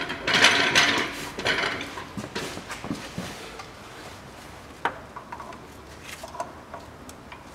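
Metal hand tools clattering and scraping, loudest in the first couple of seconds, then scattered light clicks and knocks as a filter wrench is fitted around the oil filter housing cap.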